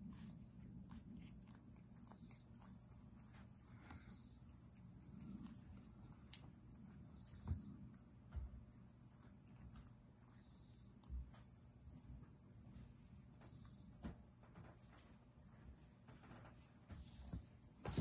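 A steady, high-pitched insect chorus trilling without a break, with a few faint clicks and knocks scattered through it.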